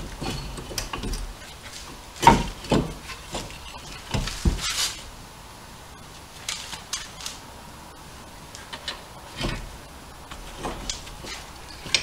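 Cast-iron brake caliper knocking and clinking against the brake disc and its mounting as it is worked back into place by hand. A few scattered, irregular metal knocks, the loudest about two seconds in.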